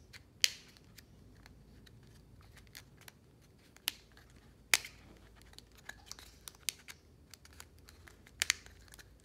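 Thin flexible plastic strip crinkling and clicking as it is wrapped around a plastic disc and its tabs are pushed into the slots, with scattered sharp clicks, the loudest about half a second in and near the middle.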